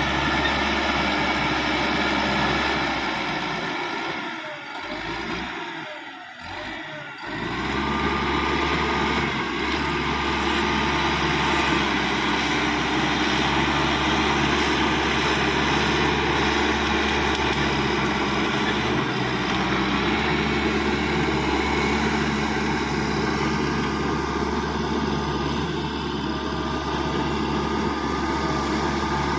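Caterpillar D5K XL bulldozer's diesel engine running steadily. About four seconds in the sound dips and thins for a couple of seconds, then the engine runs on steadily again.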